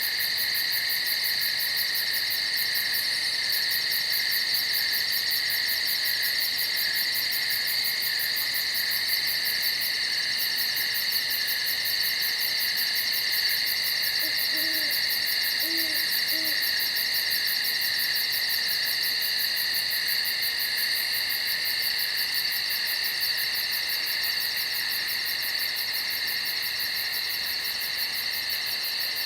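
Steady, unbroken shrill chorus of night insects with a fast pulsing trill on top. About halfway through, an owl hoots three times in quick succession, low and brief.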